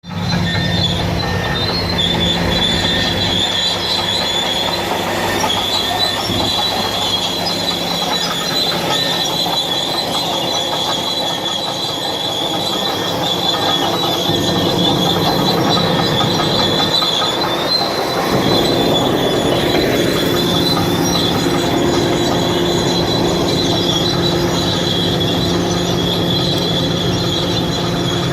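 Bulldozer running, with a steady high squeal from its steel crawler tracks over the low hum of the diesel engine.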